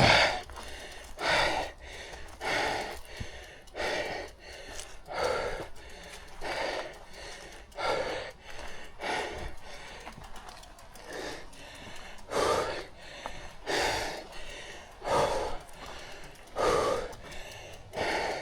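A person breathing hard from the exertion of pedalling a mountain bike uphill: heavy, gasping breaths, one about every second and a half, the first the loudest.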